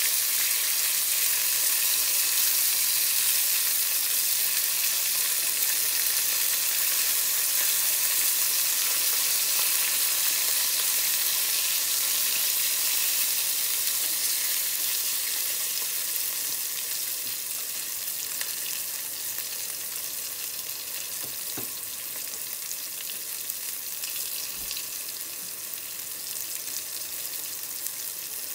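Eggplant slices sizzling in oil in a frying pan, a steady hiss that slowly grows quieter through the second half.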